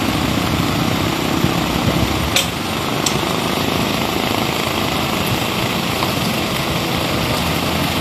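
Steady engine noise, a truck idling, with a brief sharp click a little over two seconds in.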